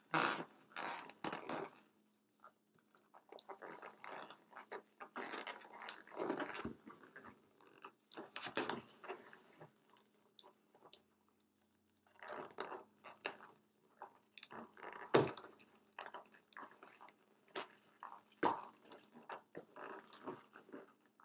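Inflated latex balloons rubbing against fingers and against each other as two of them are knotted together: irregular rubbing and scrunching with small clicks, broken by a couple of short pauses.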